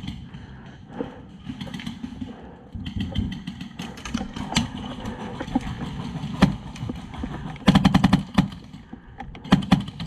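HPA-powered airsoft rifle with a Polarstar Jack engine firing: scattered shots, then a rapid burst of about eight shots lasting under a second, about eight seconds in, and a couple more shots near the end.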